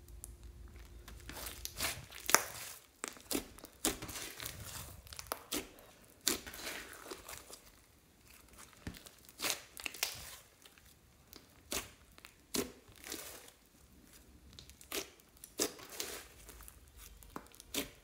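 Thick glittery slime with foam beads being squeezed, stretched and poked by hand: irregular sticky pops and clicks, the loudest about two seconds in.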